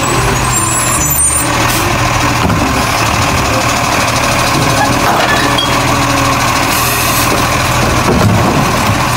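Recorded garbage-truck sound: a heavy truck engine running with a steady hiss over it, cutting off abruptly at the end.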